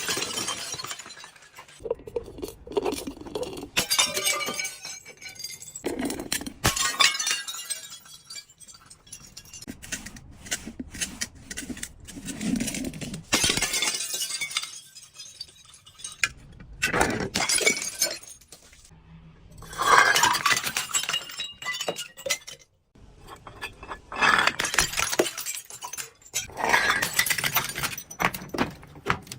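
Glass bottles breaking and being crushed, in repeated bouts of crunching and crackling glass a few seconds apart.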